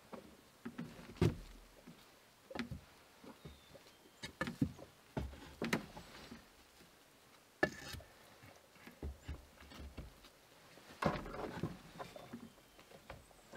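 Split firewood being handled and stacked: irregular wooden knocks and clunks as pieces are picked up and set on the woodpile, with a cluster of knocks near the end.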